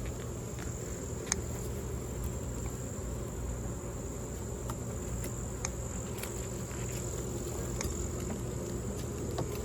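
Honeybees buzzing around an open hive, with a steady high-pitched insect trill over it and a few light clicks.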